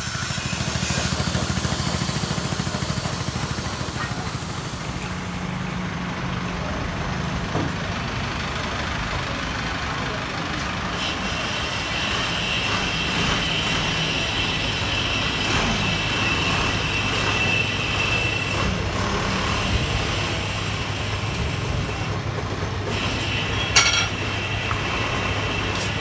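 A motor running steadily with a low hum, among general workshop noise; a single sharp click sounds a couple of seconds before the end.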